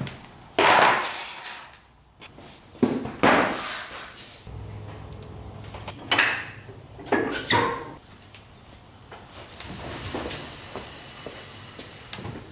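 Two-post car lift being let down with a car on it: a series of hard metal clunks and knocks from the lift arms and handling, with a low steady hum from the lift for about three seconds in the middle.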